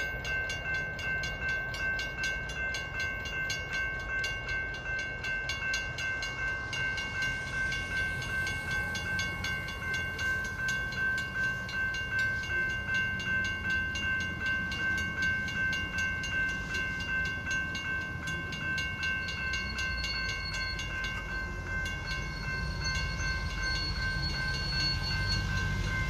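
Railroad crossing signal bells ringing in a steady repeating rhythm: a WCH 2nd Gen electronic bell and a GS Type 2 mechanical bell, over a low rail rumble.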